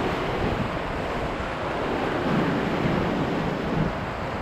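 Whitewater rapid churning steadily around the raft: a continuous rushing, turbulent water noise with no let-up.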